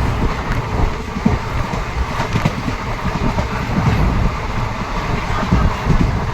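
A train running on the track: a steady low rumble with irregular clacks of the wheels over the rails.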